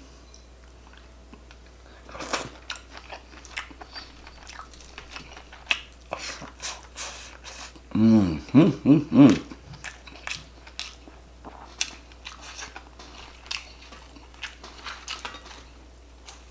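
Close-miked chewing and biting of food, with scattered crunches and clicks. A short spell of voice comes in about eight seconds in.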